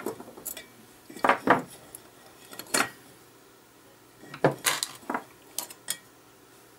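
Clinks and knocks of a guitar pedal's metal enclosure, its circuit boards and a screwdriver being handled on a wooden workbench as the pedal is taken apart. It comes as a series of separate sharp clatters, loudest about a second and a half in and again around four and a half seconds in.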